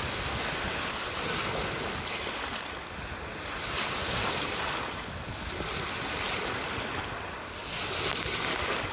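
Small sea waves washing onto the shore in a steady hiss that swells softly every second or two, with some wind noise on the microphone.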